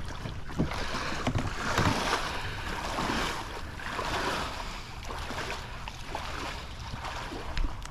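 A person in waders wading through river water, legs swishing and splashing in uneven swells with each stride, over the flowing river.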